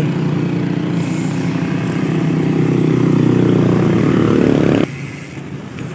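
Motorcycle engine running under throttle, getting louder and rising slightly in pitch, then dropping off abruptly about five seconds in.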